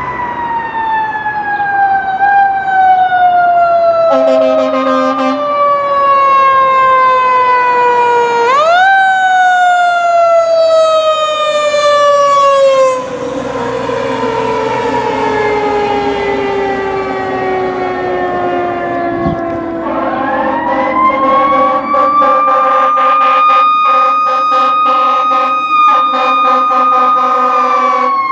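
Fire apparatus siren winding slowly down in pitch, pushed back up once about a third of the way in, with a short horn blast around four seconds. About two-thirds in, a second fire siren winds up and holds a steady high wail.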